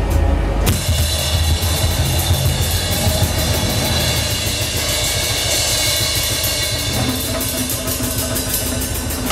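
A drum kit played fast and busy in a live set, cymbals and quick stick strokes washing over a low steady drone; the cymbal wash comes in about a second in.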